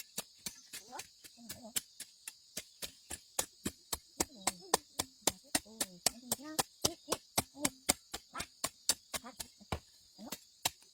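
Rapid, even chopping: sharp strokes about four a second, with faint voices underneath.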